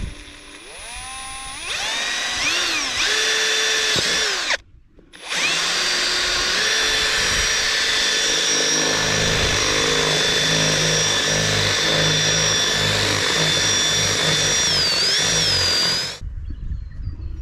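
Ryobi cordless drill boring a hole through 1-inch poly pipe. The motor whines up in pitch in short runs, stops briefly about four and a half seconds in, then runs steadily for about eleven seconds and cuts off near the end.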